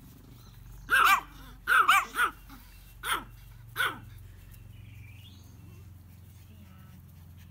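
Small terrier barking: about five short, high-pitched barks in quick succession over the first four seconds, then stopping.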